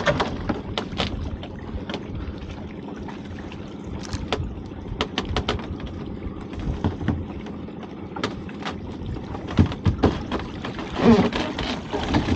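Lobster pot being hauled up the side of a small boat by rope: repeated clicks and knocks of the rope, block and pot against the hull over water sloshing, with a louder cluster of knocking and splashing near the end as the dripping pot is lifted out of the sea.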